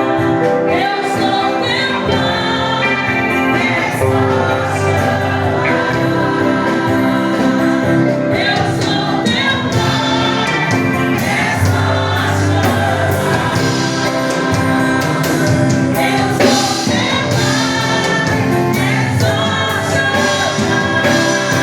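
Gospel song with a choir singing over a full instrumental backing.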